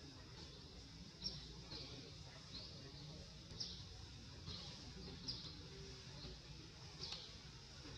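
A bird chirping over and over, short high calls every half second to a second, some louder than others, over a faint steady outdoor background.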